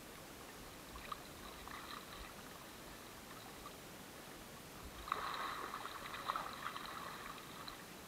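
Water lapping and splashing right at the camera at the water's surface, faint at first and louder from about five seconds in.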